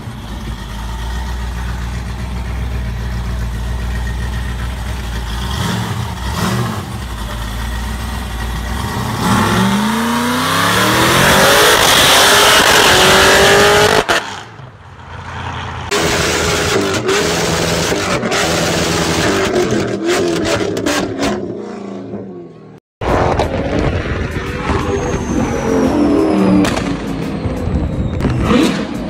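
Chevrolet Corvette V8 engines across several short clips: a deep, steady idle, then revs climbing steeply to the loudest point. After a sudden cut an engine runs at high, steady revs, and after a second abrupt cut a V8 revs up and down.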